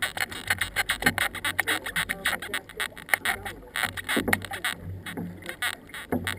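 Canoe paddles dipping and pulling through the water, with many small splashes and drips and water lapping at the canoe hull.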